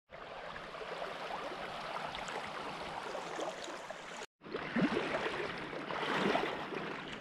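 Small creek babbling and rushing over shallow riffles and around fallen logs, a steady splashing flow. It cuts out for a moment about four seconds in and comes back louder, with a few stronger surges.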